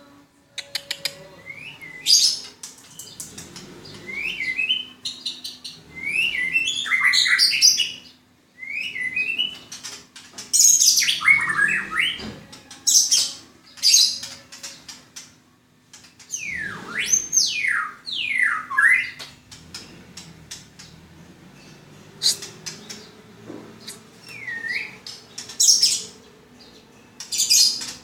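An 11-month-old white-rumped shama singing: varied phrases of clear whistles that swoop up and down, mixed with quick clusters of short high notes, in bursts separated by brief pauses. A faint steady low hum runs beneath.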